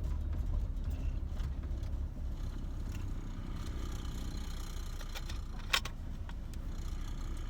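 Chevy Blazer's engine running steadily at low speed, heard from inside the cab. A single sharp click comes a little before six seconds in.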